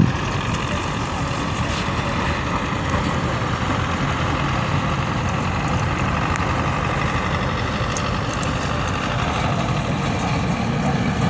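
Tractor's diesel engine running steadily while hauling a loaded trolley.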